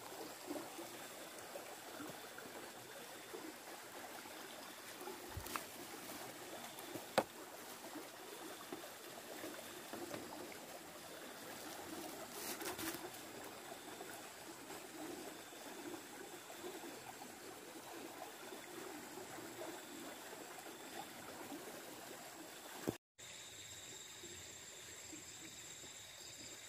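Faint trickling of running water, with a couple of sharp clicks a few seconds in. After a short dropout near the end, a steady high-pitched whine sits over the water.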